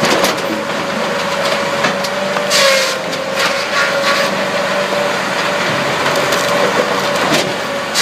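Firewood processor running with a steady hum, while wood cracks and splinters in short outbursts several times as logs are split.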